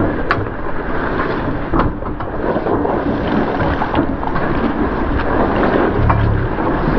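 Off-road truck wading through deep water and mud: its engine labouring under a steady churning and splashing of water, with a few knocks. The engine rumble rises near the end.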